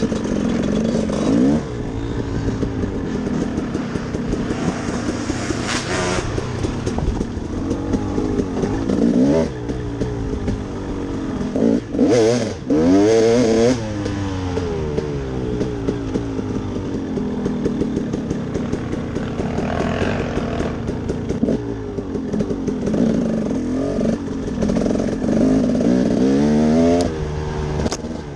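Four-wheeler (ATV) engine under way, revving up and easing off again and again, its pitch rising and falling with each run of throttle; the hardest climb in revs comes about twelve seconds in.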